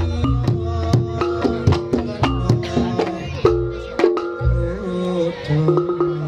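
Reog Ponorogo gamelan ensemble playing: drums and struck percussion keep a steady, busy beat under held, repeating pitched tones.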